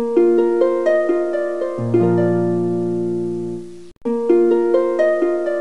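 Intro music of plucked-string notes: a quick run of single notes over a low held chord that slowly fades, breaks off just before four seconds in, and then the same phrase starts again.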